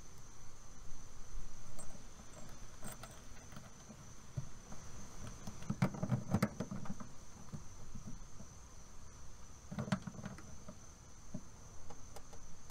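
Handling noise of wires and tongue-and-groove pliers on a metal conduit connector as its ring is tightened: clicks and rustle in two short bursts, about six and ten seconds in, over a steady high-pitched tone.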